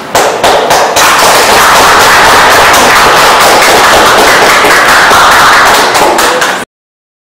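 Audience applauding: a few separate claps quickly build into steady, loud applause, which cuts off suddenly near the end.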